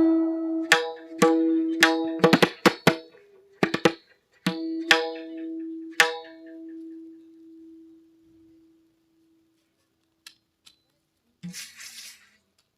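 Tuned Indian hand drum played alone: about a dozen ringing strokes over the first six seconds, some in quick runs, each with a clear pitched ring. The last stroke rings out and fades, followed by quiet with a faint rustle near the end.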